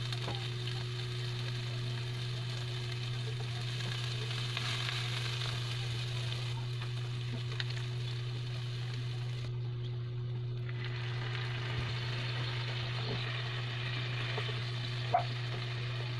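Sliced onions and chilies sizzling as they fry in oil in a nonstick pan, with occasional stirring, over a steady low hum. A single sharp knock sounds near the end.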